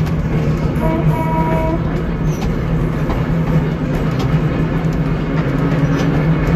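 Heritage electric trolley car running along the track, heard from inside the car: a steady low hum from the motors and gearing, with wheels clicking over the rail joints. A short higher whine comes about a second in.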